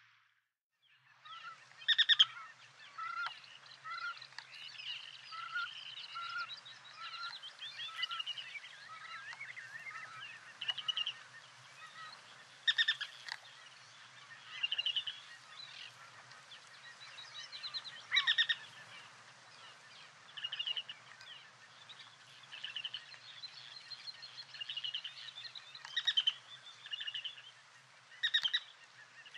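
A flock of birds calling: many short, overlapping calls, with a few louder calls standing out now and then.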